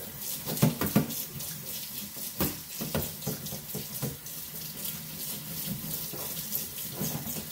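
Hot water running from a kitchen tap into a stainless steel sink, with irregular scratchy strokes of stainless steel wool scrubbing a small stainless steel part under the stream. The sharpest strokes come about a second in.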